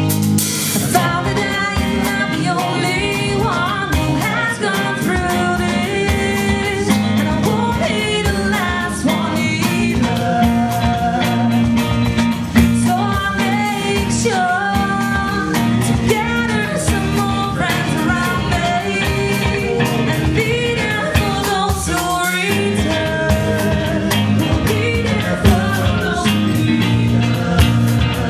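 Rock band playing live: a woman singing lead over electric guitar, bass guitar and drum kit.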